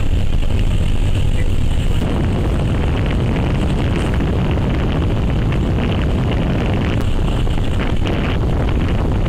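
Steady rumble of a moving minibus heard from inside the cabin: engine and road noise, strongest in the bass, with no break.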